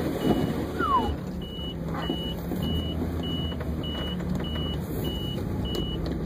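A vehicle's warning beep repeating about twice a second over the steady sound of the engine running, heard inside the cab as it drives through deep snow. There is also one brief falling squeak about a second in.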